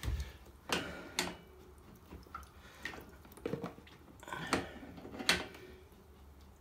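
Hands turning a new radiator valve onto its fitting: a handful of sharp, irregular metallic clicks and knocks as the valve body is handled and screwed up by hand.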